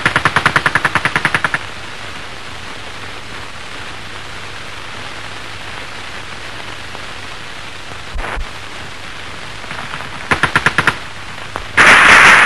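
Machine-gun fire over the steady hiss of an old film soundtrack: a rapid burst of about fourteen shots, a single thud about eight seconds in, a shorter burst of about six shots, and a loud blast of noise near the end.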